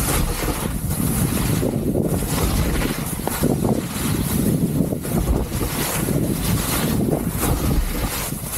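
Skis hissing and scraping through coarse spring snow in a string of quick turns, swelling about once a second. Heavy wind noise on the microphone from the skier's speed runs underneath.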